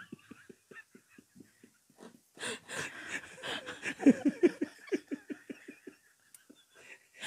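A man laughing hard and breathlessly in quick, wheezing, panting bursts. The laughter is faint at first and louder in the middle, with a short pause near the end.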